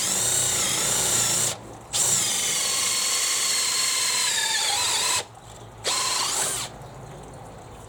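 Makita XPH07 cordless hammer drill in high gear boring an 18 mm auger bit into treated pine. The motor whines, stops briefly about one and a half seconds in, then runs again with its pitch sagging under load. It stops, gives one short final burst, and winds down; the bore goes in easily.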